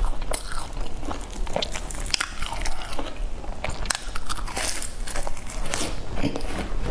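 Close-up biting and chewing of a crisp, flaky pastry cake, with irregular crackly crunches as the layers break.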